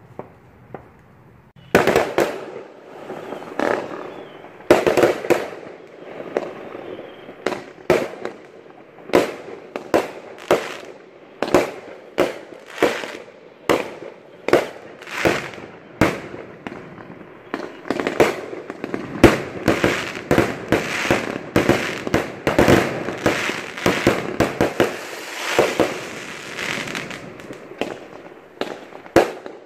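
Fireworks going off: after a quiet start, a rapid run of sharp bangs and crackles, several a second, begins about two seconds in and keeps on.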